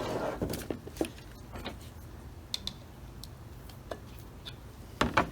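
Scattered light clicks and taps of small metal carburetor parts and hand tools being handled and set down, a few louder knocks among them, during a Holley carburetor strip-down.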